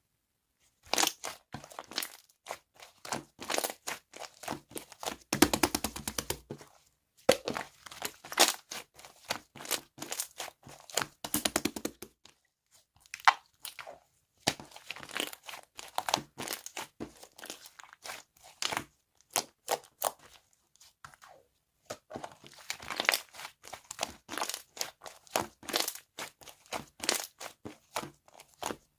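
Slime being squished, pressed and stretched by hand, giving runs of crackling clicks and pops, with a few short pauses.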